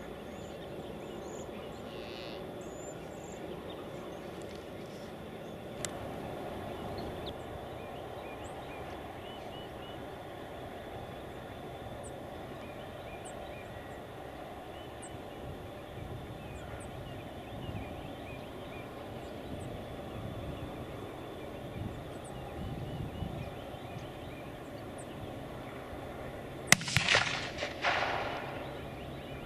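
Outdoor hush with faint, scattered songbird chirps, then near the end a sharp crack and a loud, rattling wild turkey gobble lasting about a second and a half.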